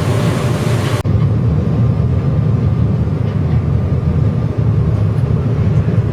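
Passenger ferry's engine running with a steady low drone, heard aboard. A loud rushing hiss of wind and water cuts off abruptly about a second in, leaving the engine drone on its own.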